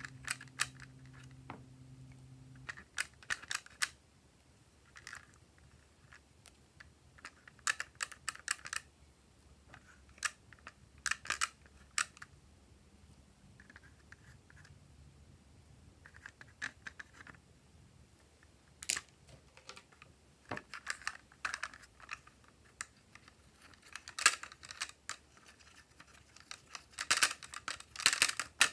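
Plastic clicks and taps: a plastic stick scraping and tapping eyeshadow pans in a plastic toy makeup palette while the palette is handled. They come in short clusters every few seconds, busiest near the end.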